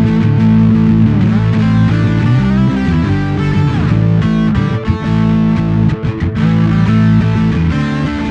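Background music: a guitar-led track with sustained notes at a steady, loud level.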